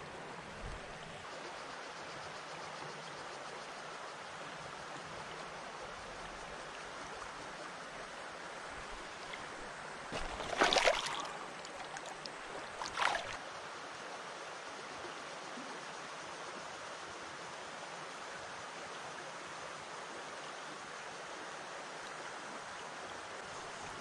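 Shallow stream running over cobbles, a steady rush of water. About ten seconds in, a brief louder noise stands out, and a shorter one follows about two seconds later.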